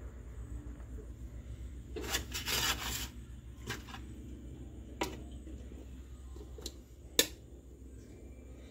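Metal spoon handling in an aluminium steamer pot: a rasping scrape about two seconds in, then a few sharp clinks, over a low steady hum.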